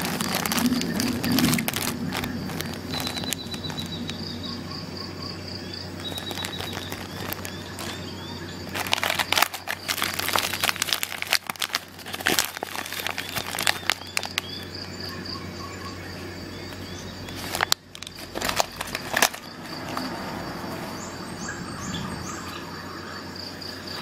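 Plastic packaging of first-aid dressings crinkling and rustling as it is handled, in two louder spells in the middle. Faint high chirps repeat in short runs in the background.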